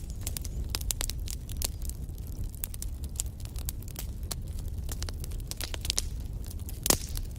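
Wood fire burning in a fireplace, crackling: a steady low rumble of flames under many sharp pops and snaps from the burning logs, with one louder pop near the end.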